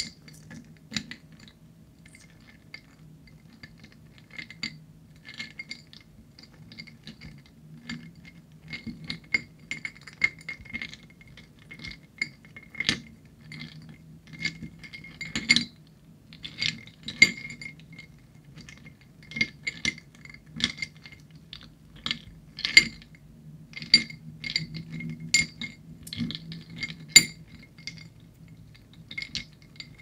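Ice cubes clinking against each other and against a ceramic plate as a hand shifts them, in irregular runs of sharp clinks, each with a brief ringing note from the plate. The clinks come thicker from about eight seconds in.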